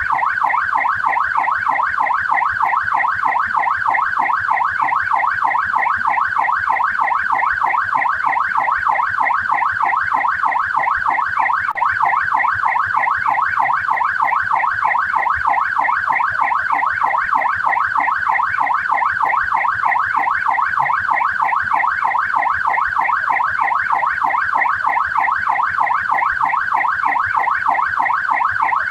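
Australian police siren sounding continuously: a high tone sweeping quickly up and down, several times a second, without a break.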